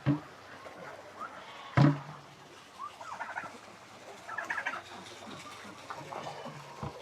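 Two sharp thumps, the first right at the start and the louder one about two seconds in, followed by chickens and a turkey calling in short clucks and chirps.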